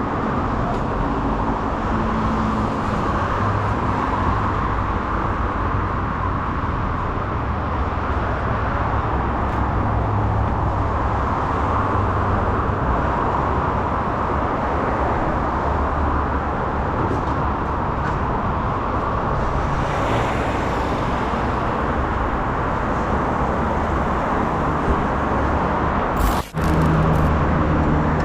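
Yamaha YZF-R6's inline-four engine with a full aftermarket exhaust system, running at a steady pace under way, mixed with wind noise on the microphone. A brief sudden break comes about a second and a half before the end.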